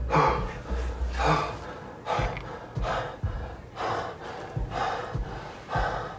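A person breathing hard in ragged, gasping breaths, about one a second.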